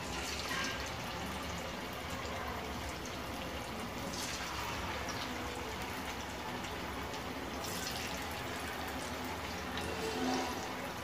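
Marinated chicken pieces deep-frying in hot oil: a steady, vigorous sizzle and bubbling. It surges louder a few times as more pieces go into the oil.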